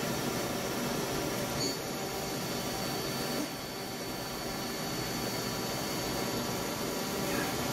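Mazak Multiplex 4200 CNC lathe running: a steady mechanical hum, with a thin high whine that sets in about two seconds in and holds steady.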